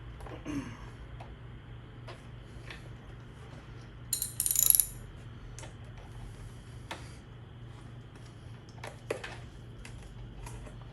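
Light metal clicks and knocks from a motorcycle fork cap being pressed down against a new, stiffer fork spring and worked to catch its threads, with a brief louder metallic clatter about four seconds in.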